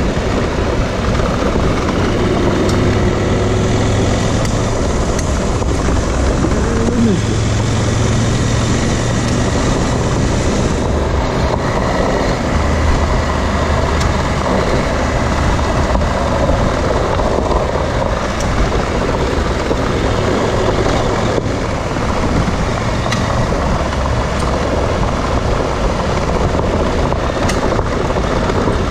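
Dual-sport motorcycle engine running while riding, its low note shifting with the throttle under a steady rush of wind and road noise.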